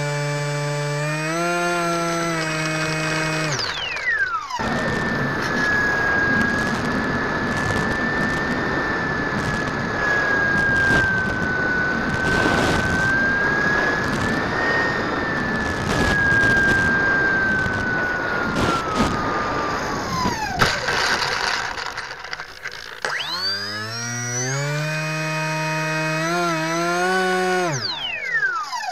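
Engine and propeller of a radio-controlled scale Drifter ultralight, buzzing at part throttle and then throttled back about four seconds in. For roughly the next sixteen seconds it runs with a steady high whine over a loud rushing noise, and the whine dies away. A few seconds later the buzz picks up again and is throttled back near the end.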